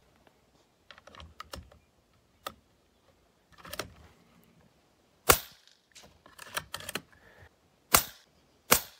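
FX Wildcat MK2 compact .25 PCP air rifle firing three shots through its shrouded barrel: sharp cracks about five seconds in and two close together near the end. Quieter clicks of handling come before and between the shots.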